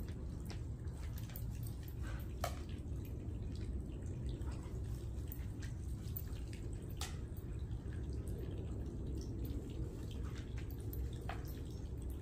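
Outdoor background noise: a steady low rumble with a few scattered faint ticks.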